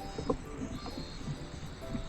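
Background music: a simple melody of held notes over a busy low accompaniment.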